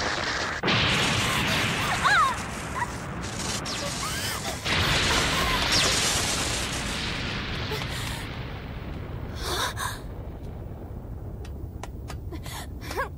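Animated sound effects of explosions: two sudden loud blasts, about half a second and about five seconds in, each followed by a long rumble that slowly fades.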